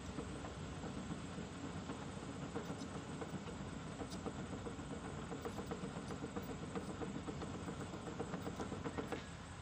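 Diesel engine of heavy construction machinery idling with an even pulsing beat; it stops abruptly near the end.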